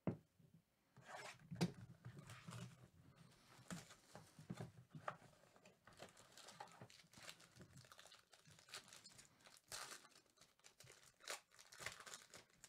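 Foil wrapper of a 2019 Topps Tier One baseball card pack being torn open and crinkled by hand: faint, irregular crackles and rustles.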